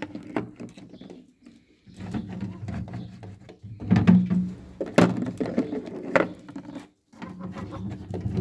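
Hens' eggs knocking against a plastic basin and against each other as they are gathered from nest boxes, with rustling handling noise. A few sharp knocks stand out in the middle, about five and six seconds in.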